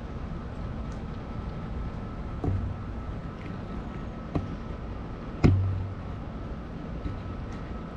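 Three sharp knocks over a low, steady outdoor rumble with a faint steady hum; the loudest knock, about five and a half seconds in, is followed by a short low boom.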